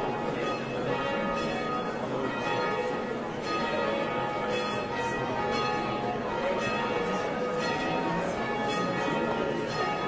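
Church bells pealing, several bells ringing over one another in a steady, continuing peal.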